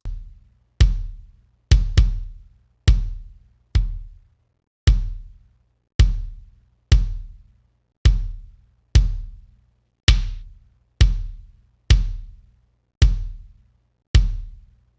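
Soloed, sample-replaced kick drum playing back through an SSL E-series channel strip plugin, about one hit a second with a quick double hit near two seconds in. Each hit is a short click with a deep low thump that dies away, while an EQ cut to take some of its attack out is being dialed in.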